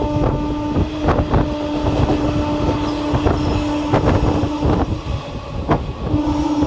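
Passenger train running on the rails, heard from on board: wheels clattering over rail joints, with a long steady horn note that stops about five seconds in and sounds again near the end.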